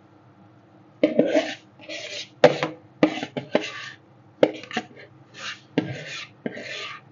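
Metal spatulas scraping and tapping on the steel cold plate of a rolled ice cream stall: a run of short rasping scrapes with a few sharp knocks, starting about a second in.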